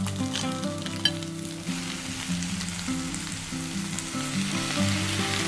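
Clam shells clicking against one another as they go into the hot pot over the onions, then from about two seconds in a sizzle builds as sake is poured over the clams. Soft background music with held notes plays underneath.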